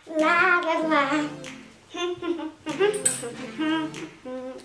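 Music with a singing voice: a sung melody in short phrases with brief pauses between them.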